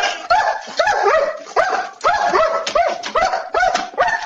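A dog barking fast and repeatedly, about two to three short barks a second, each with a quick rise and fall in pitch.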